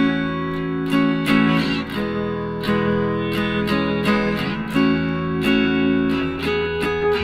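Background music: strummed guitar chords in a steady rhythm.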